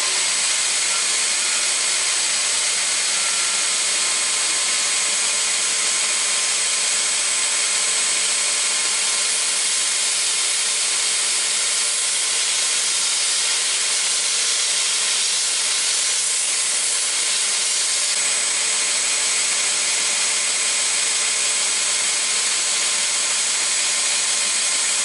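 Belt grinder running steadily at low speed, its abrasive belt grinding down a knife's solid polymer handle slowly enough to remove plastic without melting it.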